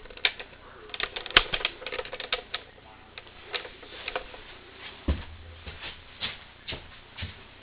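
Handling noise close to the microphone: irregular clicks and light rustles, thickest in the first couple of seconds, with a dull thump about five seconds in.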